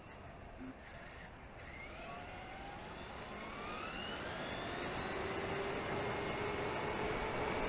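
Electric motor of a Traxxas E-Maxx RC monster truck whining as the truck speeds up, several tones rising in pitch for a few seconds and then holding steady. A steady noisy rush runs underneath and grows louder.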